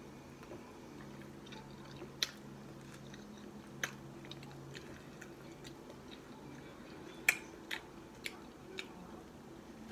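Quiet chewing of a mouthful of fried burrito, with several sharp clicks of a fork against the plate as it cuts into the burrito, the loudest about two seconds and seven seconds in, over a faint steady hum.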